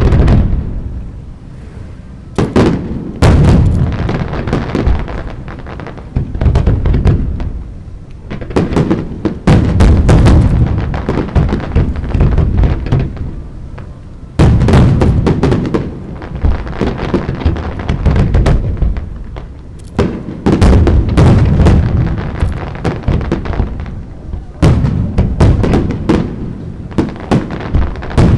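Fireworks display: aerial shells bursting in rapid volleys of sharp bangs every few seconds, with a deep rumble from the reports carrying on between volleys.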